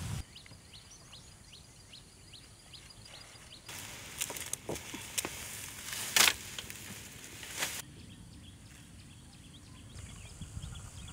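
Outdoor ambience with repeated short high chirps. In the middle it gives way to rustling and crackling as bundles of long dry grass are handled, with one loud sharp snap about six seconds in. The chirping returns near the end.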